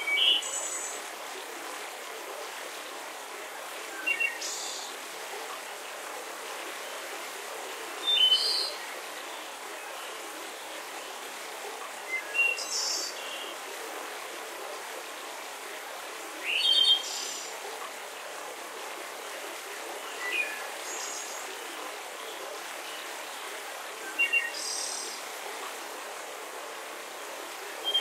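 Steady rushing hiss of a waterfall, with a bird chirping short high phrases about every four seconds over it.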